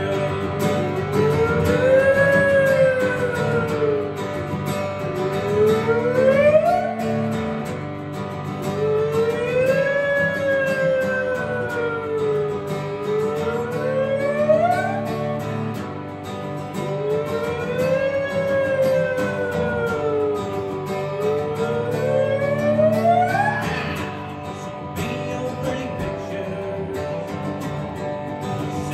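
Amplified Martin DSS-17 acoustic guitar playing an instrumental passage through effects pedals and a PA, steady chords underneath. Over them a high tone swoops up and down in slow waves, each ending in a quick upward glide, repeating about every eight seconds.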